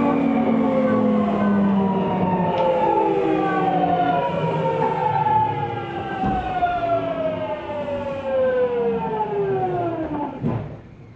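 Tokyu 2000-series electric train braking into a station: the whine of its inverter and traction motors, several tones together, falls steadily in pitch as the train slows. It dies away about ten and a half seconds in as the train comes to a stop.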